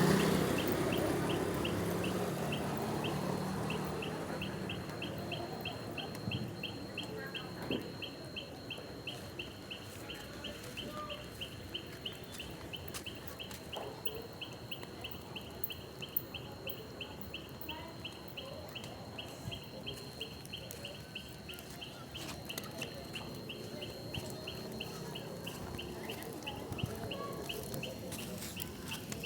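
Street bonfire of wet firewood and charcoal burning with scattered crackling pops, under a steady high chirping about three times a second.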